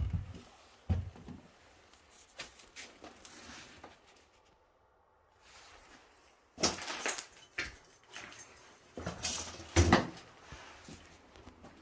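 Footsteps and scattered knocks, clatter and rustles of things being handled and moved about, with two louder bursts of clatter, one just past the middle and one near the end.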